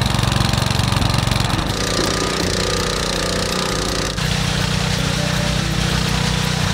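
Small petrol engine of a portable motor pump running steadily with a fast, even pulsing beat, driving water through the hose.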